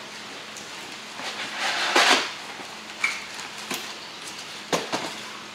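Cardboard shipping box being opened and its polystyrene liner lid lifted out: a rustling scrape of cardboard about two seconds in, then a few light knocks and clicks as the lid comes free.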